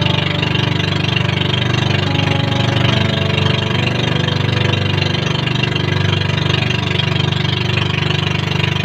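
Outrigger boat (bangka) engine running steadily under load while towing a second boat, with a fast, even pulse.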